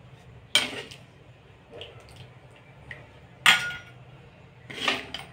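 Metal ladle clinking and scraping against a steel kadai and a steel serving bowl as curry is stirred and ladled out: three sharp clinks, about half a second in, about three and a half seconds in (the loudest), and near the end.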